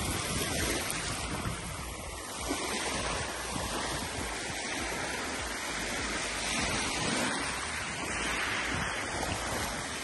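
Small sea waves lapping and washing up over a shingle-and-sand shoreline.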